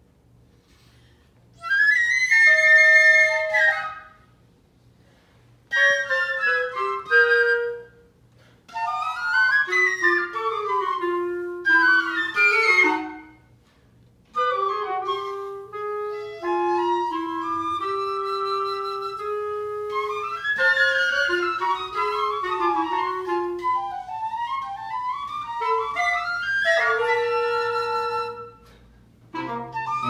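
A small woodwind ensemble with cello plays a chamber piece: flute and clarinet lines over a lower sustained voice. The first phrases come in short bursts broken by pauses, with quick rising and falling runs. From about halfway through the playing continues without a break.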